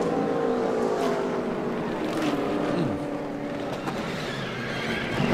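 Stock car V8 engines passing on the track, their pitch gliding downward, over a steady wash of track noise.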